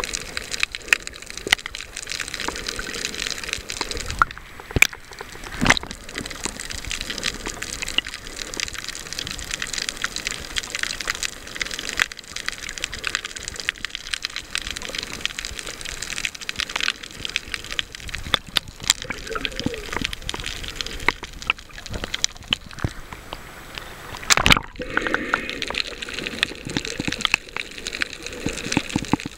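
Underwater sound picked up by a submerged camera on a coral reef: a steady hiss of water over a dense, irregular crackle of small clicks, with one louder knock near the end.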